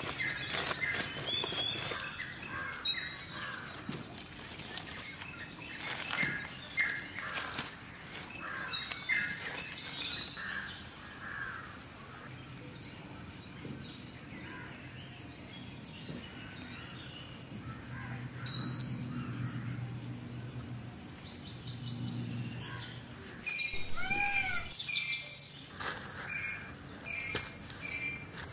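Forest ambience: a steady, high-pitched insect drone with birds chirping and calling now and then, and a louder bird call about two-thirds of the way through.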